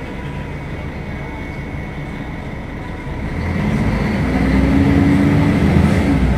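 Diesel engine of a Mercedes-Benz O500UDA articulated bus running, steady at first, then growing louder from about halfway through as it pulls under load, with a stronger hum.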